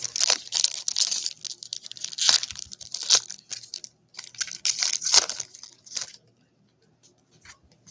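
Foil wrapper of a 2021 baseball trading-card pack torn open and crinkled by hand, in two spells of rustling tearing, the second stopping about six seconds in.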